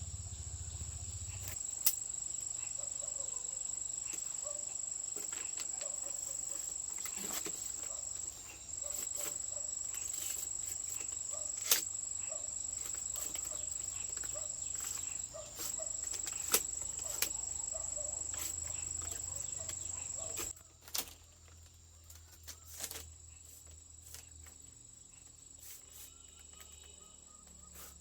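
A steady, high-pitched insect drone that cuts off suddenly about twenty seconds in. A few sharp knocks are scattered through it.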